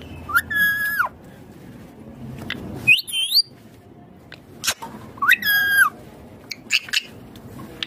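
Indian ringneck parakeet calling: two drawn-out calls, one near the start and one about five seconds in, with a short high whistle that rises and falls between them, and a few sharp clicks.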